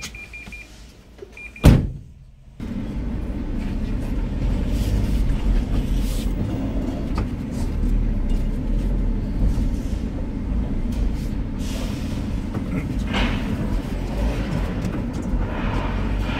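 A few short electronic beeps from the van and a single sharp bang. Then, about two and a half seconds in, the van's engine comes in suddenly and runs steadily as the van drives slowly.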